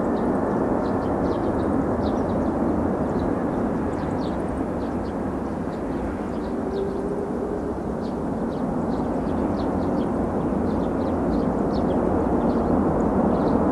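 Jet engines of an Airbus A330-300 heard from a distance as it rolls along the runway: a steady, broad rumble that swells a little toward the end.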